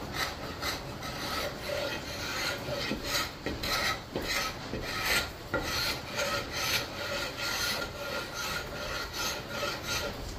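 A flat steel scraper with a square 90-degree edge drawn again and again along a wooden axe handle in quick repeated strokes, stripping the factory varnish down to bare wood.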